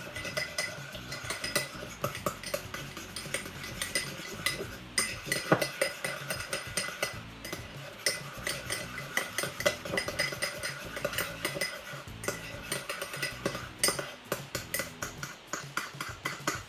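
A utensil stirring thick body wash in a bowl, clinking and scraping against the sides over and over, several quick clinks a second with a brief ring after each.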